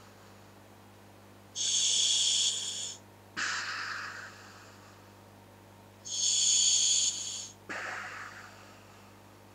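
Breathing through a scuba regulator fitted to a full-face gas mask: twice, a steady high hiss of air through the demand valve lasting about a second, each followed by a lower, sharper-starting rush that fades away.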